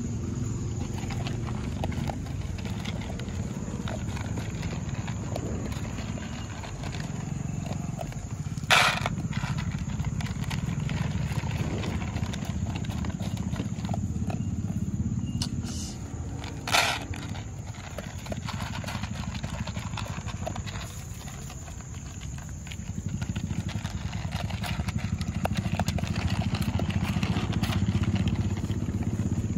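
Dogs eating dry kibble, crunching and chewing with their muzzles in plastic bowls, over a steady low background rumble. Two sharp clicks stand out, about nine and seventeen seconds in.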